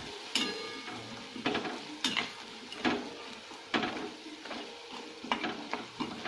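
Metal spatula scraping and knocking against a stainless steel kadhai, roughly once a second, as onions, peas and powdered spices are stirred. Oil sizzles steadily underneath as the dry spices fry.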